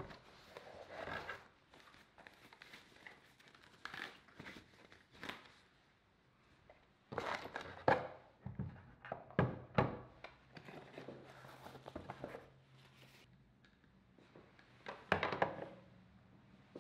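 Packing tissue rustling and crinkling with cardboard scraping while a desk phone base is unpacked from its box, with a few knocks as it is handled and set down on a wooden table, the louder ones about halfway through and near the end.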